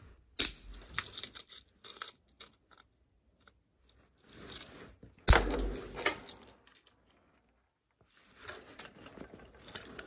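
Cutters snipping and snapping the little metal tabs off the ends of a new light switch's mounting strap: a string of sharp clicks and snaps, the loudest about five seconds in with a low thud under it, and a quick run of clicks near the end.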